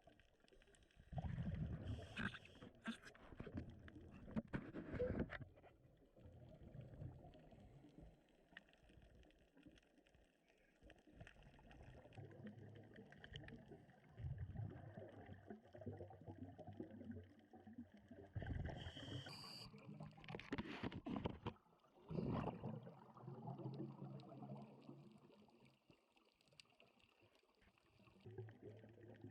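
Underwater sound picked up through a waterproof action-camera housing: faint, muffled gurgling and low rumbling that comes in irregular bursts, stronger a second or so in and again around two-thirds of the way through.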